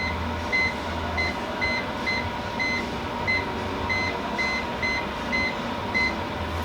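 Salva Kwik-co oven control panel beeping as its keys are pressed: a dozen or so short, high electronic beeps at uneven, quick intervals over a steady hum.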